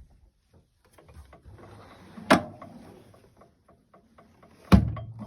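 Drawer and tools of a steel Snap-on tool chest being handled: faint rustling and light clicks, then two sharp knocks about two and a half seconds apart, the second heavier.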